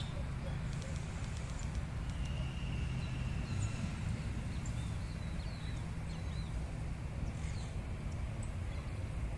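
Birds chirping now and then in short high calls over a steady low rumble.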